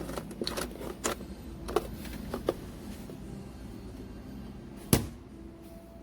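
A handful of light clicks and knocks from objects being handled, then one sharp knock about five seconds in.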